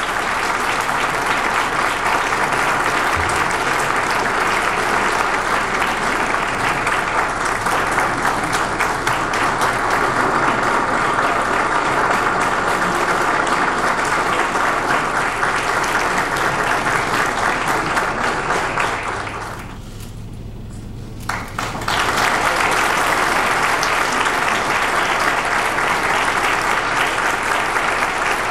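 Audience applauding, a dense crackle of many hands clapping. About two-thirds of the way through it falls away for a couple of seconds, then resumes at full strength.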